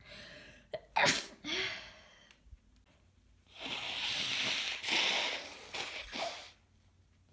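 Congested, wet sneezing from a woman with a heavy head cold: two sharp sneezes close together about a second in, then a longer rushing, snotty burst lasting about three seconds.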